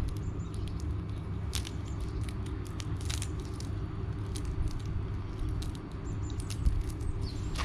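Fishing net being handled as fish are untangled from it: scattered small clicks and rustles over a steady low rumble.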